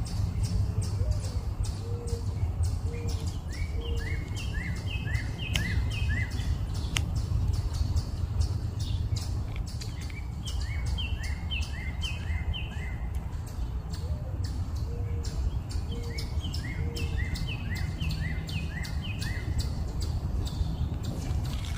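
Songbird chirping: phrases of six to eight short, quick, falling chirps, repeated in three groups a few seconds apart, with a few soft low notes alongside, over a steady low rumble of background noise.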